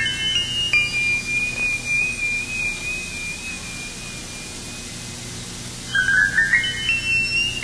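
Solo high-pitched flute-like melody: a short rising phrase, one long held note, then a quick rising run of short notes about six seconds in, over a faint low hum.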